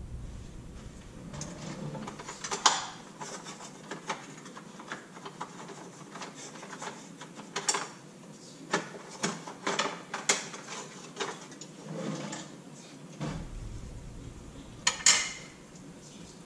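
Kitchen clatter of utensils and a drawer: irregular clicks, knocks and rattles of metal and dishware being handled, with a few louder clanks among them.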